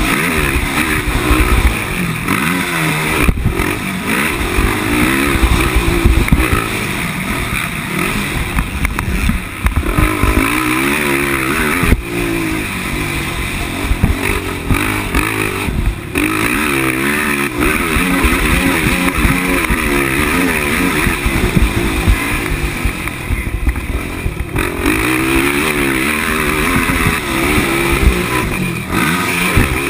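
A 450-class sport quad's four-stroke engine racing on a dirt motocross track, its pitch sweeping up and down over and over as the throttle is opened and rolled off through turns and onto jumps. Heard from a helmet camera, with low wind rush and a few sharp knocks from the track.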